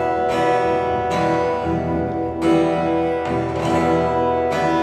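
Acoustic guitar played live: chords strummed about once a second, each left ringing.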